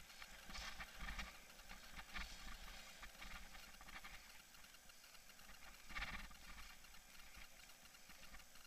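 Faint rattling and bumping of a bike-mounted camera as a mountain bike rolls over a dirt singletrack, with irregular louder rattles, the strongest about six seconds in.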